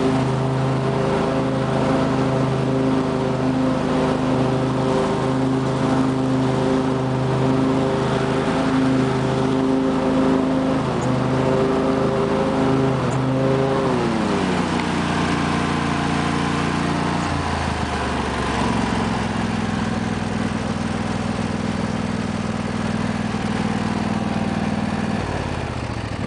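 2005 Husqvarna lawn tractor's 24 hp Briggs & Stratton V-twin engine running steadily while mowing. About halfway through its pitch falls and settles at a lower speed, then steps again a few seconds later.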